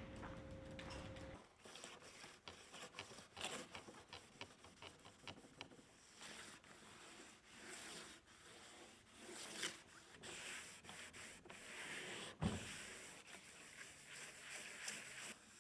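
Faint, irregular rubbing and scraping strokes of hand work on a surface, mixed with small clicks and taps, and one sharper knock about twelve seconds in. A low steady hum stops a little over a second in.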